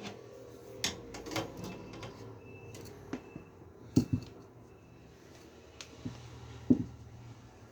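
Scattered clicks and knocks of hard computer parts being handled and fitted, the loudest a double knock about four seconds in and another near the end.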